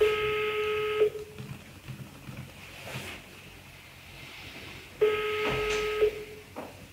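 Telephone ringback tone on speakerphone: two one-second beeps of the same steady tone, about four seconds apart. The dialled call is ringing at the other end and has not yet been answered.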